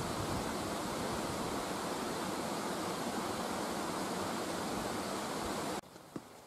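A steady, even rushing noise with no rhythm or pitch, which cuts off suddenly near the end.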